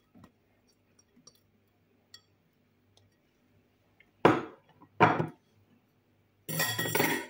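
Kitchen glassware and a metal utensil clinking: faint small clicks, then two sharp clinks about a second apart, and a longer ringing clatter of glass near the end.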